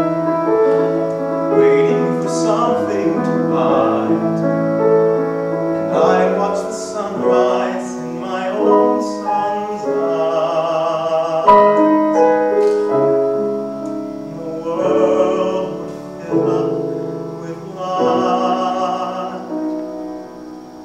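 A male voice sings a musical-theatre ballad with vibrato on its held notes, accompanied by a grand piano.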